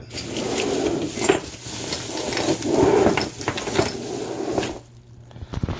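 Rummaging through a shipping box: packing material rustling and small metal parts clinking and rattling, with many small clicks, dying away near the end.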